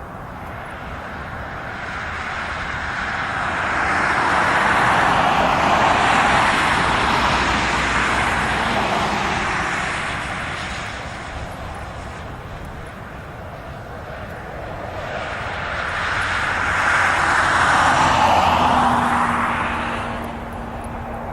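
Aircraft engines passing by twice. Each pass swells to a peak, about six and about seventeen seconds in, and then fades, with a sweeping whoosh as it goes by.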